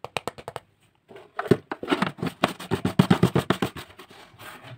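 Hands handling and gripping a rigid plastic jug lid: a few sharp plastic clicks, a short pause, then a run of dense, irregular clicking and scraping from about a second in.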